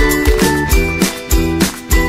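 Upbeat children's background music with a steady beat and bright tinkling notes.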